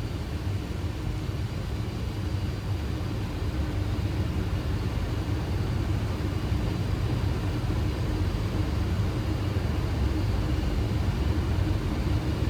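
Steady flight-deck noise of a Boeing 737 on final approach with landing gear down and flaps at 30: a low rumble of airflow and engine hum with a faint steady tone, growing slightly louder.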